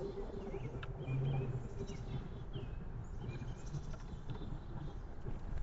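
Backyard songbirds giving short, faint chirps now and then over a steady outdoor background, with a low hum that swells briefly about a second in.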